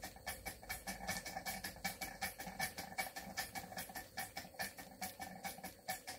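Small model steam beam engine running steadily under steam, driving a Baker fan by a belt, with an even rapid clicking of about five beats a second.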